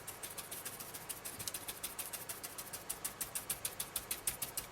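Ink blending tool rubbed and dabbed over card, making rapid, fairly regular light scuffing taps, several a second.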